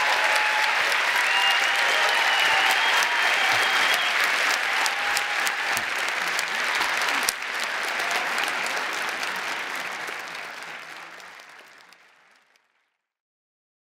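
Large audience applauding, a dense clapping that fades out near the end.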